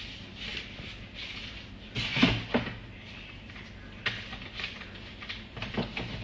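Handling noise: light rubbing with a few short knocks and clacks, a cluster about two seconds in, one around four seconds and a couple near the end, as objects are moved and set down on a table.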